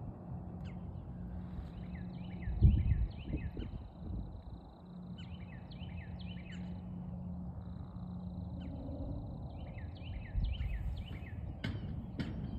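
A bird calling in three quick runs of short descending chirps, over a steady thin high tone. A thump about three seconds in is the loudest sound, and a few clicks come near the end.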